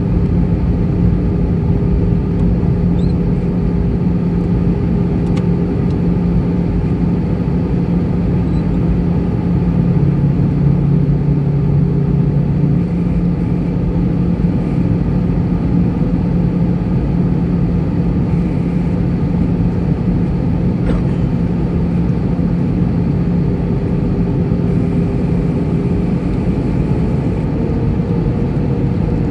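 Cabin noise of an Airbus A320-214 heard from a window seat over the wing: the steady rush of airflow and the hum of its CFM56-5B turbofan engines, with a few steady tones in the hum. Near the end one engine tone shifts slightly higher.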